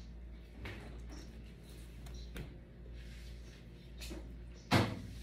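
A few soft knocks, then one sharp, louder clack near the end: household objects being handled and set down.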